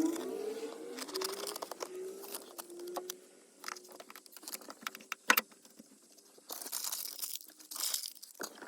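Sheets of sound-deadening mat being handled and pressed on: crinkling, tearing and scattered taps and clicks, with one sharp click about five seconds in.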